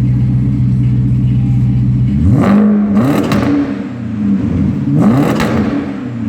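BMW 545i's 4.4-litre V8 idling through a custom-made, near straight-through exhaust, then blipped twice. The revs come about two seconds in and again near five seconds, each rising quickly and falling back to idle.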